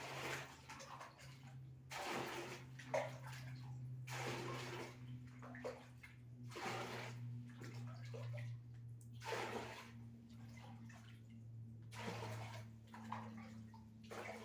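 Rainwater from a roof leak being scooped up and poured out, in separate splashing pours about every two to three seconds. A steady low hum runs underneath.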